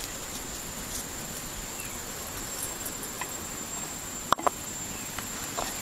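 A steady high insect whine over a constant hiss, with a few light ticks as chopped chili is dropped onto raw chicken wings in a clay pot. Two sharp clicks come close together about four and a half seconds in.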